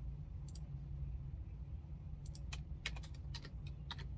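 Typing on a computer keyboard: irregular key clicks, few at first and coming faster in the second half, over a steady low hum.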